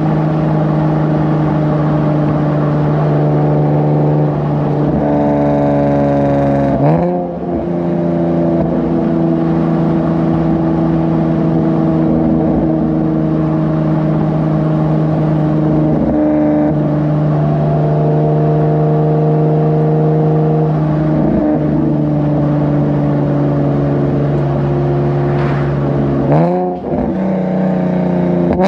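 Nissan 370Z's 3.7-litre V6 through PPE exhaust headers, running at steady revs with a constant drone. About seven seconds in and again near the end, the pitch bends and the sound briefly dips before settling back to the same drone.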